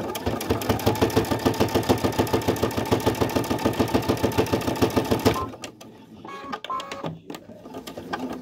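Brother Innov-is V5 computerised sewing machine stitching at speed with a rapid, even needle rhythm, then stopping about five seconds in, followed by fainter handling sounds.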